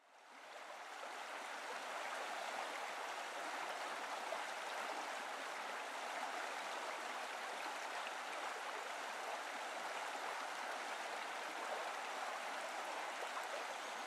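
Small waterfall splashing steadily into a rock pool, a constant rushing hiss of falling water that fades in over the first second or two.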